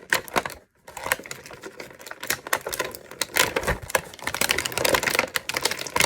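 Plastic toy packaging crackling and clicking rapidly and unevenly as it is pulled and twisted by hand, without giving way.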